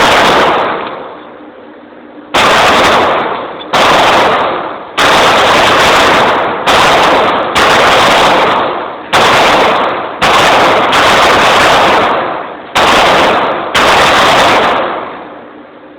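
Gunshots at a shooting range: about eleven single shots, one every one to two seconds, each very loud and sharp with an echoing tail that dies away before the next.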